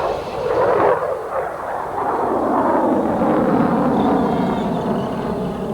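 Small model engines of several radio-controlled race cars buzzing around the track, their pitch rising and falling as the cars accelerate and slow for the corners.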